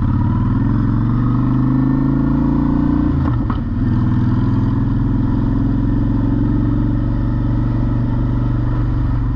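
Honda Shadow V-twin motorcycle engine under way, heard from the rider's seat. It pulls up in pitch, dips briefly about three seconds in as if shifting gear, then climbs again and settles to a steady cruise.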